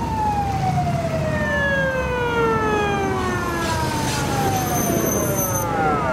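A siren wailing: after a quick rise its pitch falls slowly over about six seconds, then starts to climb again at the very end. The low running of passing cars' engines sits underneath.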